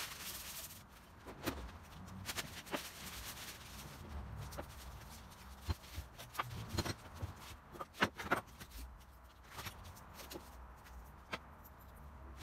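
Handling noise of steel vise parts and tools on a wooden workbench: a scattered series of short knocks and clicks, several of them close together about eight seconds in.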